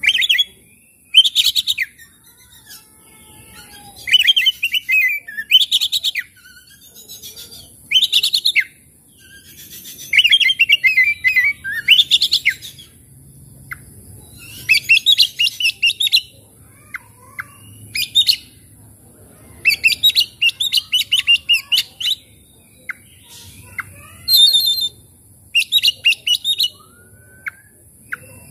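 Oriental magpie-robin singing loud, rapid chattering and whistled phrases, a burst every second or two with a few single notes between them.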